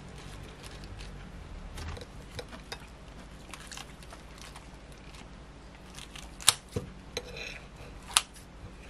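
Soft rustling as a flour tortilla wrap stuffed with lettuce is handled and folded, then a few sharp clicks and snips near the end as kitchen scissors cut through the folded tortilla.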